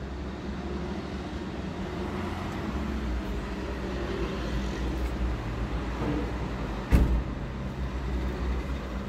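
A steady low mechanical hum, with a single sharp thump about seven seconds in.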